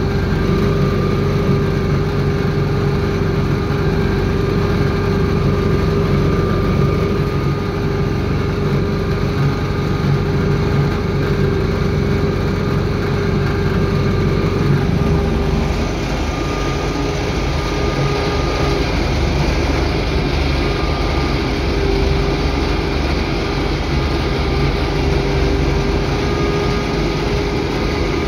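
UTB Universal U650 tractor's four-cylinder diesel engine running steadily under load while pulling a reversible plough through the soil, heard from the cab. Its low note changes about halfway through.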